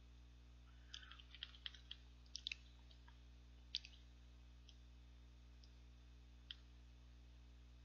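Near silence over a steady low hum, broken by faint, scattered small clicks, mostly in the first four seconds and once more at about six and a half seconds.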